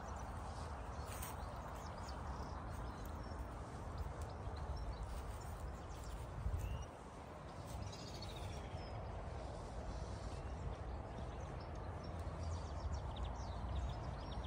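Outdoor ambience: a steady low rumble and hiss of background noise, with a few faint bird chirps now and then.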